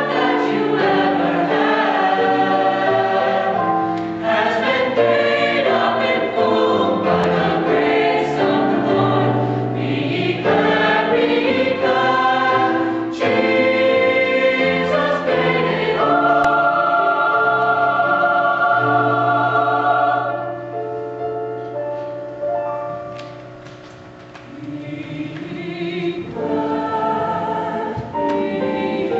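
Choir singing a gospel song in harmony. A long chord is held about two-thirds of the way through, then comes a quieter passage before the voices build again near the end.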